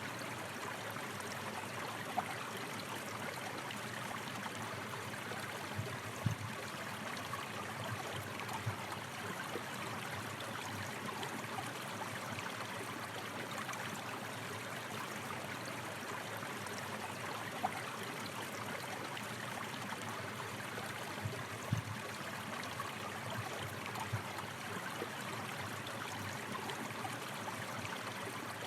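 A stream of water rushing and splashing steadily over rocks, with now and then a louder splash.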